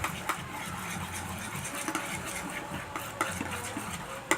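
A utensil stirring sticky slime in a bowl, with irregular clicks and scrapes against the bowl as the glue, shaving foam and Tide activator are mixed together.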